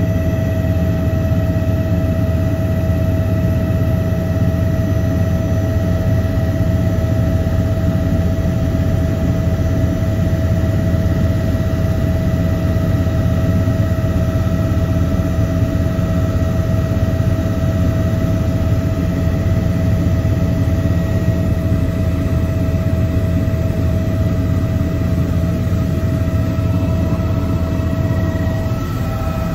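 Helicopter running, heard from inside the cabin: a steady low rotor and engine drone with a constant high turbine whine. Near the end the drone eases slightly and the whine shifts.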